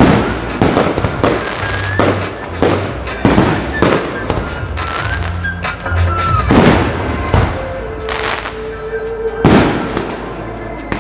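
Aerial fireworks shells bursting in a rapid string of bangs, about one every half to three-quarters of a second, with a few heavier booms in the second half. Music plays over a PA system underneath.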